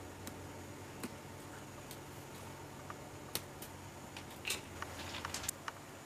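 Faint scattered clicks and light taps of small objects being handled, coming thicker about four to five and a half seconds in, over a low steady hum.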